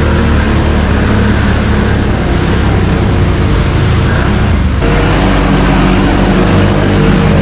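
Quad bike (ATV) engines running steadily under throttle while riding through a flooded mud track, with water and mud splashing. The sound changes abruptly about five seconds in.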